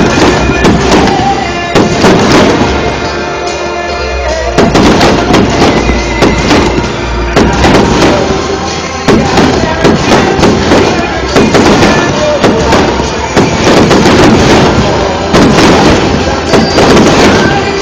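Aerial fireworks exploding in quick succession, many bangs and crackles overlapping, with music playing at the same time.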